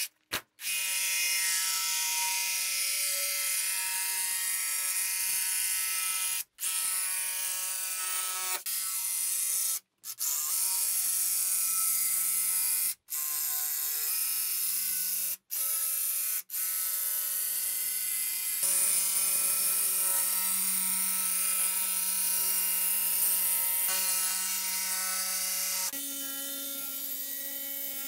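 Cordless jigsaw cutting through okoume plywood, its motor and blade giving a steady, high whine. It cuts off abruptly for a split second several times, and the pitch steps up about two seconds before the end.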